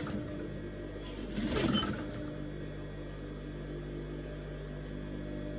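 Domestic sewing machine running in short bursts of stitching, one right at the start and a second of about a second shortly after, over steady background music.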